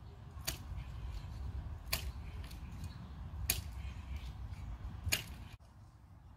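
Four sharp clicks, about a second and a half apart, over a low rumble like wind on the microphone.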